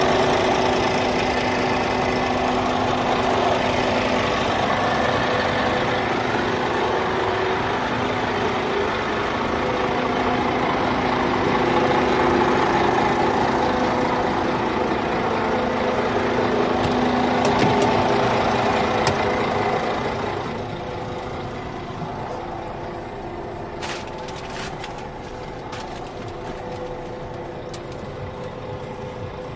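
Scania G440 truck's 13-litre six-cylinder diesel idling steadily. About twenty seconds in it becomes quieter and duller, heard from inside the cab, with a few light clicks.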